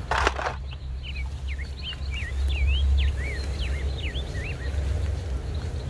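A bird sings a quick run of short chirping notes that sweep up and down, lasting about three seconds, over a steady low rumble. At the very start there is a brief clatter as a plastic toy figure is set down in a plastic basket.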